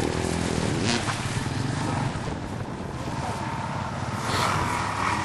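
Motorcycle engine running as a bike rides on a dirt track, its pitch shifting now and then rather than holding steady.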